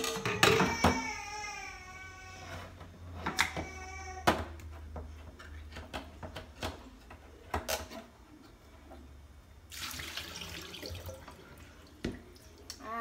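Kitchen sink tap running while canned jackfruit is drained and rinsed, with scattered sharp knocks and clanks. Near the end the water runs steadily for about two seconds.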